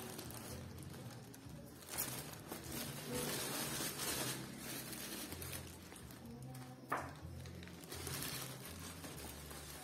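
Tissue paper rustling and crinkling in irregular bursts as it is handled and taped down, with one sharp click about seven seconds in.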